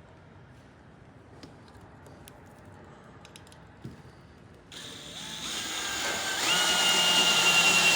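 A few faint handling clicks, then about five seconds in a power drill starts and speeds up, its whine rising in steps and holding steady before it cuts off near the end.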